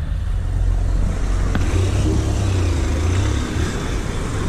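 Motorcycle engine running as the bike rolls slowly, with a brief click about one and a half seconds in.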